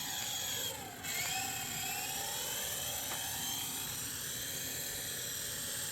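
Remote-control toy helicopter's small electric motors whining as its rotors spin, the pitch sagging briefly about a second in and then rising again as it keeps running.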